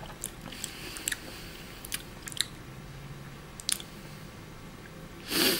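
Mouth sounds of someone tasting a sip of energy drink: a scattering of faint lip smacks and tongue clicks, then a short, louder breath near the end.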